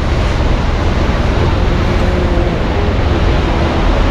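Loud, steady rush of churning sea water and wind at the Naruto tidal whirlpools, with a low rumble underneath.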